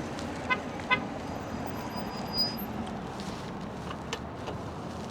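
Steady wind and road noise from riding a bicycle along a road, with two short pitched toots about half a second apart near the start.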